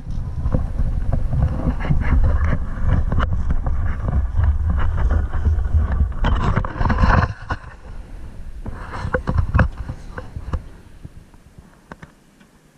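Handling noise: a dense low rumbling and rubbing as the landing net's mesh and frame brush against the camera, breaking after about seven seconds into scattered clicks and rustles that fade away near the end.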